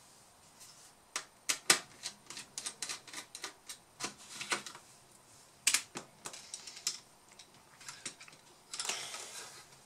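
Irregular sharp clicks and taps of a screwdriver working against the laptop's plastic bottom case, with a short scraping rustle near the end.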